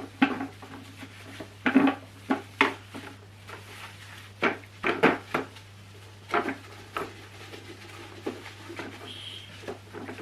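Irregular knocks and clatter of a Henry vacuum cleaner's body and parts being handled and wiped down by hand, with rubbing between the knocks. About nine sharp knocks fall in the first seven seconds, then quieter rubbing, over a faint steady low hum.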